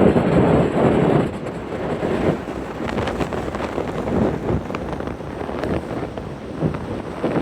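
Strong wind buffeting the microphone in gusts, loudest in the first second or so and then easing.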